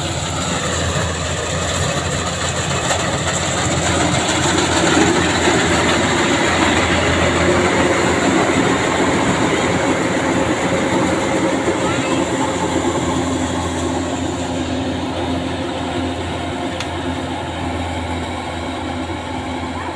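Rice combine harvester running steadily while it cuts and threshes: a continuous engine-and-machinery drone that swells about five seconds in and eases slightly toward the end.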